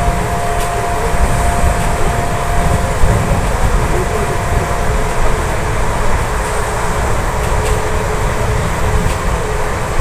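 Passenger express train running at speed, heard from an open coach door: a loud, gusty rush of wind and rolling wheel noise. A faint steady whine runs through it and shifts lower about halfway through.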